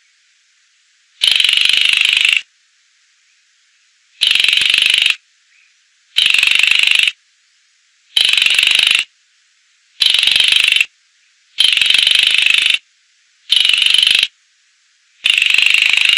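Baillon's crake giving its rattling call, each call about a second long, repeated eight times at roughly two-second intervals.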